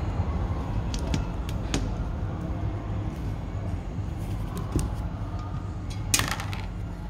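Metal parts of a dish stand being handled and fitted together: a few light clicks and scrapes, the loudest a little after six seconds in, over a steady low rumble.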